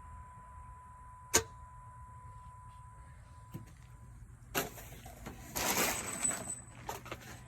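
A 2013 Dodge Durango SXT gives a single sharp click as the key is turned, but the engine does not crank: a no-start that the owner suspects is the crankshaft position sensor or the starter. A few softer clicks and a rustling noise follow about five to six seconds in.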